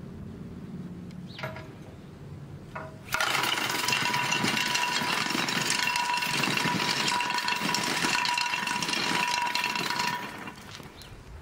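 Rotary chimney tile breaker, its chains spun on steel chimney rods by an electric drill, clattering and smashing against a clay flue tile, breaking it up, with a steady whine. It starts about three seconds in and stops about ten seconds in.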